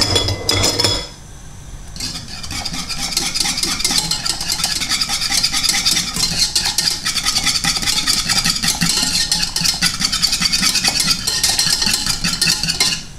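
Small wire whisk beating a simmering glaze in a metal saucepan, just after a cornflour slurry has gone in to thicken it: a fast, steady scratching and rattling of wire against the pan, starting about two seconds in after a brief clatter.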